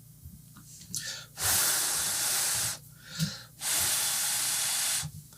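Two long, even hisses of rushing air, each about a second and a half, with a second's pause between them.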